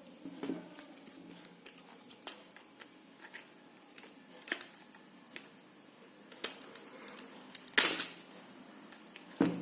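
Small robot car chassis parts being handled and fitted by hand: scattered light clicks and taps at irregular intervals, with two louder knocks near the end.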